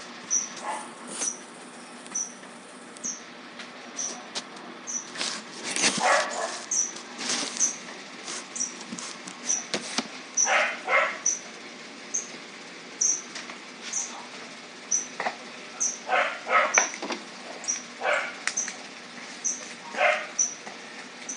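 Scraping and handling sounds from brushing glue and stacking paperboard box pieces, in short scattered bursts. A short high chirp repeats about once a second throughout.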